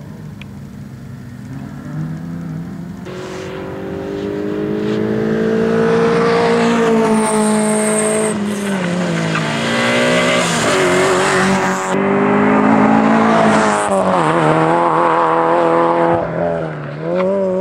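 Fiat rally car's engine revving hard, its pitch climbing and dropping several times as the driver accelerates and lifts through a tight chicane. The car gets louder as it comes close and passes, with a brief high tyre squeal about eight seconds in.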